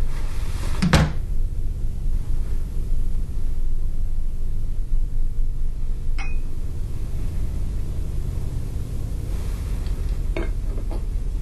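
A low, steady rumbling drone. It is broken by a sharp knock about a second in, a single click around the middle, and a few light clinks of a porcelain espresso cup against its saucer near the end.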